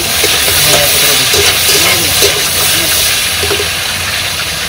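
Steady loud hiss of mushroom chilli frying in a pan over a high gas flame, with faint voices underneath.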